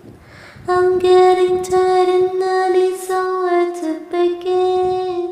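A woman singing unaccompanied: an audible breath, then one long held note of about four and a half seconds, with a brief dip in pitch near the end.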